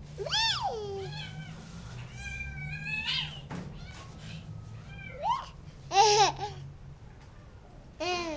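A cat meowing repeatedly: about five high, drawn-out calls that rise and fall in pitch, the loudest about six seconds in.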